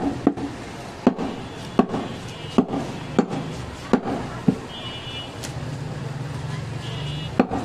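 A heavy curved butcher's chopper striking a wooden tree-trunk block as goat meat is cut into pieces: a run of sharp chops about half a second to a second apart, a pause in the middle, then two quick chops near the end.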